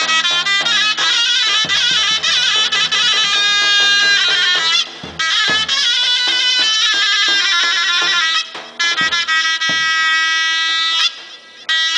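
Zurla, the Macedonian folk shawm, playing a loud, piercing, heavily ornamented melody with a few short breaks, over occasional deep strokes on a tapan, a large double-headed bass drum.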